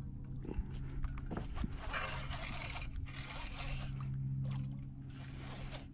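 A person mouth-breathing heavily close to a head-mounted camera's microphone, in two long breaths near the middle, with a few sharp clicks and scrapes of handling early on, over a steady low hum.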